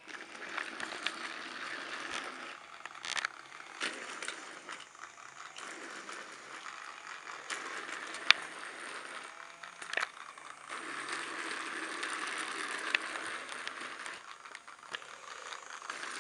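Motorized Railway Snowy Ryan battery-powered toy train running on its track: its small electric motor and gears whir steadily, growing louder and softer a few times, with scattered sharp clicks, the loudest about halfway through.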